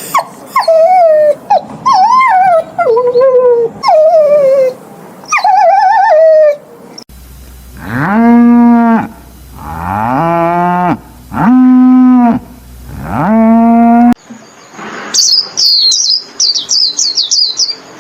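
A run of animal calls with abrupt cuts between them: first several short, wavering calls that fall in pitch, then cattle mooing, four long, level moos, then a quick flurry of high chirps.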